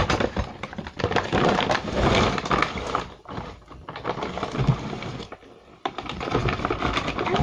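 Dense, rapid clicking and rustling, like objects being handled close to the microphone. It quietens for a couple of seconds in the middle and picks up again near the end.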